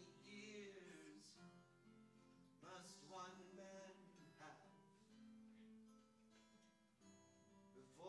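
Acoustic guitar strummed slowly, with a man singing over it, heard faintly.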